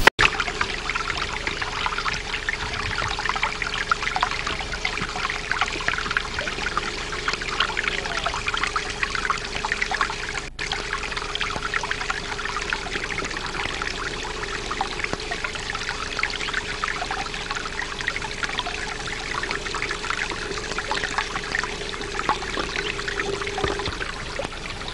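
Water running and trickling steadily over rock in a small, shallow stream channel, with a faint steady hum underneath.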